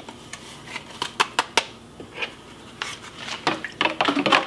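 A paper packet of gravy mix emptied into a glass measuring cup of water with a few scattered light clicks, then a metal spoon stirring in the glass, its clinks coming quicker and denser near the end.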